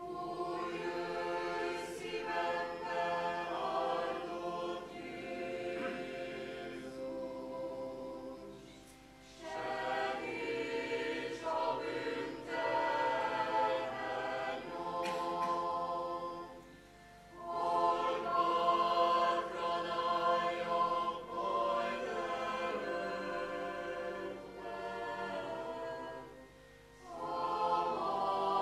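Mixed church choir of men's and women's voices singing a hymn in long phrases, with three brief breaks between lines.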